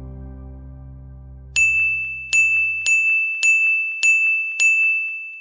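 Soft background music fading out, then a high bell-like ding struck six times at the same pitch, about every half second, with the last one ringing on and dying away.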